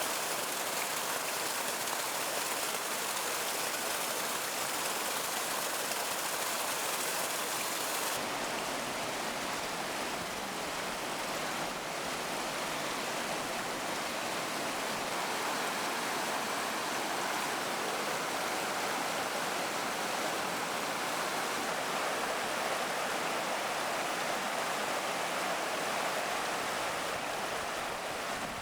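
River waterfall, water rushing over rocks in a steady, even rush. The highest hiss eases slightly about eight seconds in.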